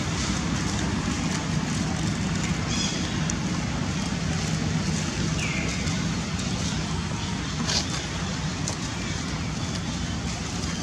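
Steady low outdoor background rumble, with faint crackles of dry leaves as small monkeys scramble over them and a short high squeak about five and a half seconds in.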